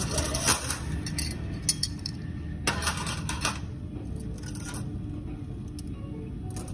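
Stainless steel surgical instruments (ring-handled clamps and scissors) clinking against each other as a handful is lifted and sorted. Sharp clinks come in a run over the first few seconds, then thin out.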